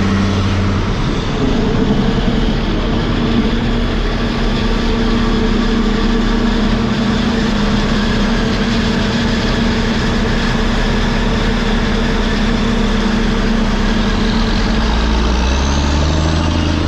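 Heavy machine engine running steadily, its pitch shifting about a second and a half in and again near the end.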